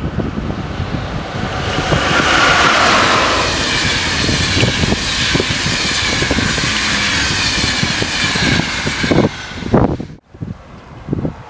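RegioJet passenger train hauled by an electric locomotive passing at speed: loudest as the locomotive goes by two to four seconds in, then a steady rolling rush of the coaches' wheels on the rails. The sound cuts off abruptly near the end, leaving gusts of wind on the microphone.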